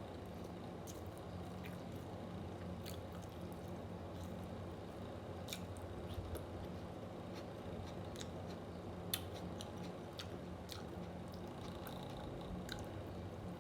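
Chewing and mouth sounds with scattered sharp clicks, over the steady hum of an electric fan.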